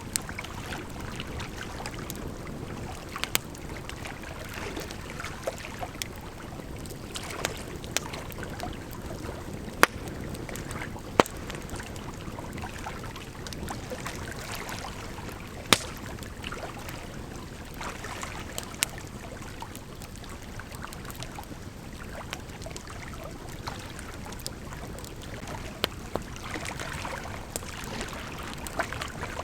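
Campfire crackling, with scattered sharp pops, over the steady rush of a gently flowing river.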